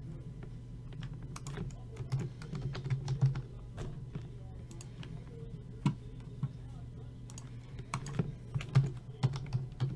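Typing on a computer keyboard: bursts of key clicks, bunched about two seconds in and again near the end, over a steady low hum.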